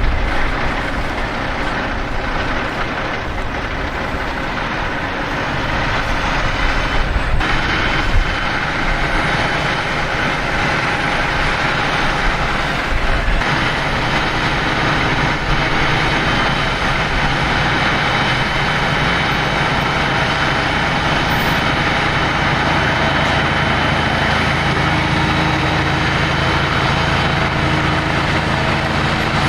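Backhoe's diesel engine running steadily, getting louder about six seconds in and again around fourteen seconds in.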